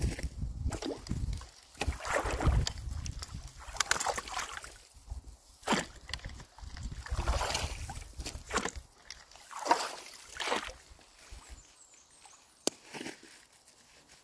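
Shallow water sloshing and splashing in irregular strokes as a long-handled rake is dragged through beaver-dam sticks and mud clogging a culvert inlet, quieter near the end with a single sharp click.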